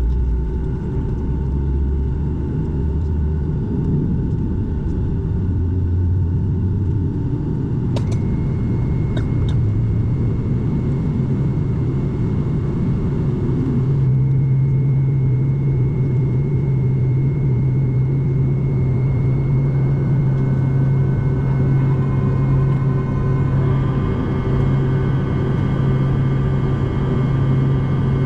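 Steady low rumble inside a Boeing 757-200's cabin on the ground with its jet engines running. A couple of faint clicks come about eight and nine seconds in; a deeper steady hum strengthens about halfway through, and higher steady whining tones join in the last third.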